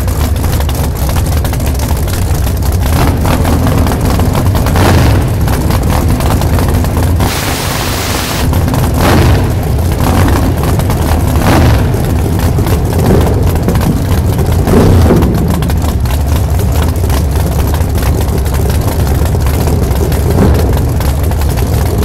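Big-tire drag race car's engine idling at the strip, a loud, heavy low rumble with a few short surges. A loud hiss lasting about a second cuts in about seven seconds in.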